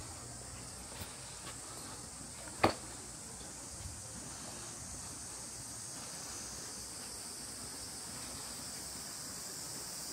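Steady, high-pitched insect chorus from the surrounding trees, with one sharp knock a little under three seconds in.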